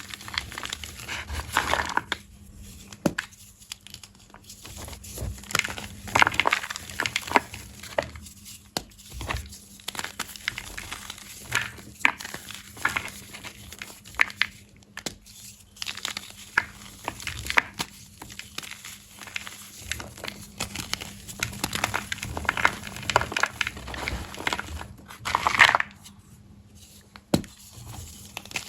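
Soft, crunchy blocks of black-dyed gym chalk being crushed, crunching and crumbling in irregular bursts, the loudest near the end.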